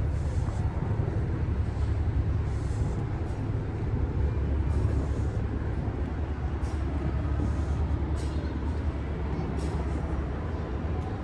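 Steady low rumble of outdoor city ambience, with a few faint ticks on top.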